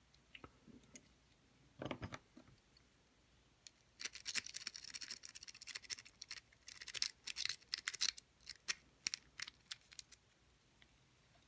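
Rake pick worked rapidly in the keyway of a Master Lock No. 1 padlock, a fast run of metallic clicks and scrapes as it rakes over the pin tumblers. A soft knock about two seconds in, and a sharp click right at the end.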